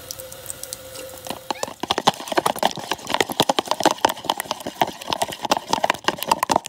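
Water running from a kitchen tap for about the first second and a half. Then an egg is beaten in a plastic bowl, with quick, uneven clicking of a utensil against the bowl.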